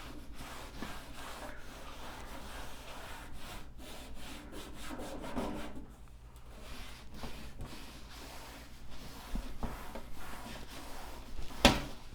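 A cloth scrubbing and wiping dirt off a computer case in repeated rubbing strokes, with one sharp knock near the end.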